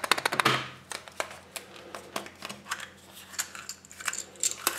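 Yellow plastic Kinder Surprise toy capsule handled and opened: a quick rattle of the small plastic toy parts inside at the start, then scattered plastic clicks and taps as the capsule is pried apart.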